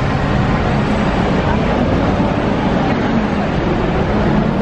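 Busy city street traffic: double-decker buses, a lorry and cars running past with a low engine hum and steady road noise, with indistinct voices of passers-by.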